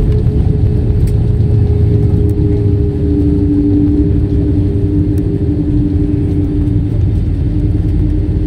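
Airliner cabin noise while rolling on the runway after landing: a loud, steady low rumble from the jet engines and the wheels, with two steady engine tones, the lower one coming in about two seconds in.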